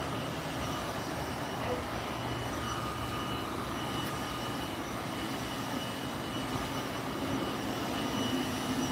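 Steady background hum and hiss with a faint high-pitched whine, unchanging throughout.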